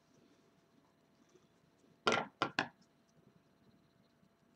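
Scissors being picked up and handled on a wooden tabletop: three quick, loud clacks about two seconds in. Faint rustle of yarn and fingers before and after.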